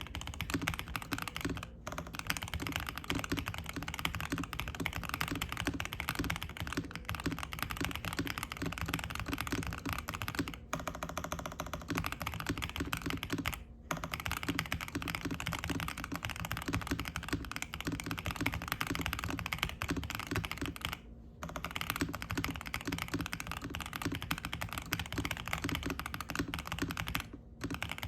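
Fast typing on a Zuoya GMK67 mechanical keyboard with stock DK Roastery Iced Latte switches, a polycarbonate plate, a foam-filled, tape-modded plastic case and ABS keycaps, set on a desk mat. Keystrokes clatter rapidly and continuously, with a few brief pauses.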